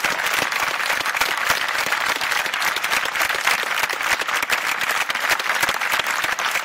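Large crowd applauding: dense, steady clapping.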